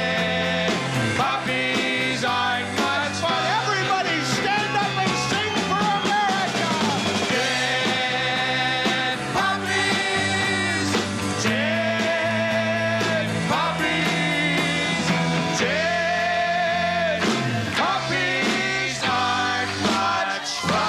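Live rock band playing with electric guitars, drums and singing, the music running steadily throughout.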